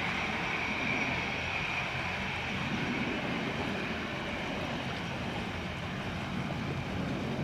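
Airbus A321's CFM56 turbofan engines at low taxi thrust: a steady high whine over a low rumble. The whine eases a little after the first few seconds as the jet turns side-on.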